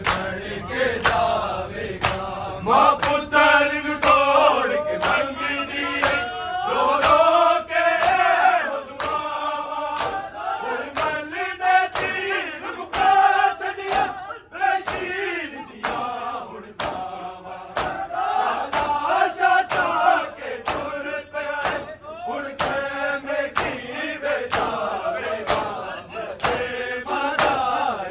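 A crowd of men chanting a Muharram noha (lament) together, over a steady beat of sharp hand slaps on bare chests (matam).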